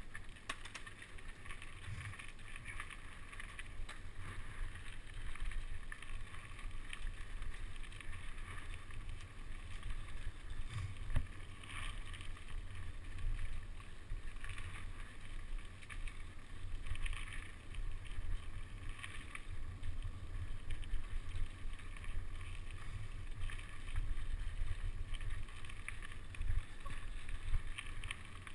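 Mountain bike rolling over a dirt woodland trail, heard from a camera mounted on the bike: a steady low rumble of the tyres and frame vibration with wind on the microphone and scattered small knocks, the loudest about eleven seconds in and near the end.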